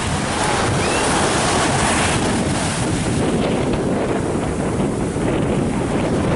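Small waves breaking and washing up a sandy beach in a steady rush of surf, with wind buffeting the microphone.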